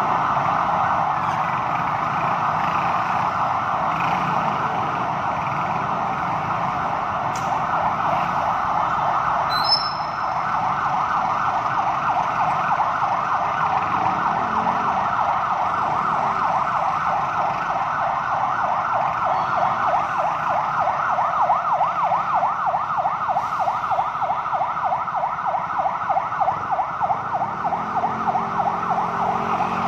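Ambulance siren sounding a continuous fast warble, its rapid up-and-down sweeps growing more distinct in the second half.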